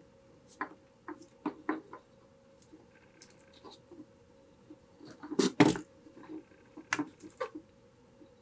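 Handling noises of pliers, paracord and wooden nunchaku sections on a workbench: scattered light clicks and knocks as the cord is fed through the sticks. There is a louder clatter about five and a half seconds in and another knock near seven seconds.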